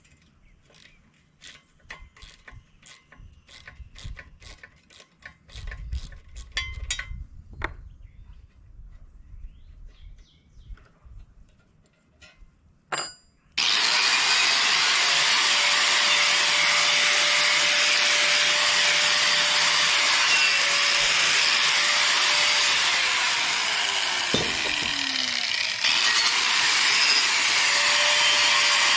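Hand tool work on tractor parts, with runs of quick, sharp clicks like a ratchet wrench and a few knocks. About thirteen seconds in, a power tool starts suddenly and runs steadily, loud and hissing with a faint whine that sags briefly near the end and then recovers.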